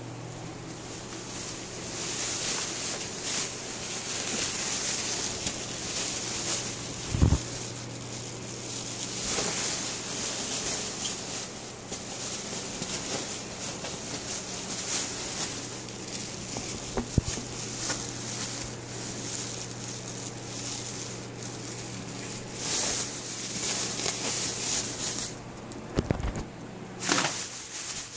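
Thin plastic shopping bags crinkling and rustling as they are handled, in uneven bursts, with a few dull knocks and a steady low hum underneath.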